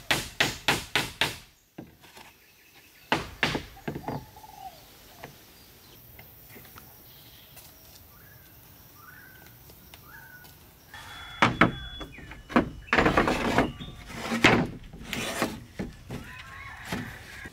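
Wood being worked by hand: a fast run of wooden knocks, about four a second, that stops a second or so in. After a lull with a few short bird chirps, irregular thumps and scraping of wood start about eleven seconds in.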